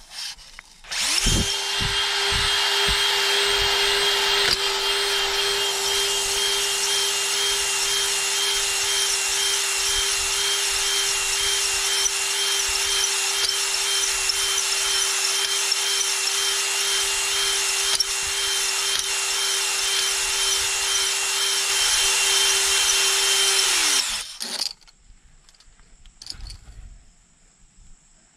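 Cordless drill spinning a spring-loaded stone hone inside a Ford big-block V8's cast-iron cylinder bore. The stones grind steadily against the wall over a steady motor whine, honing a crosshatch into the rust-pitted bore. It starts about a second in and stops abruptly after about 23 seconds.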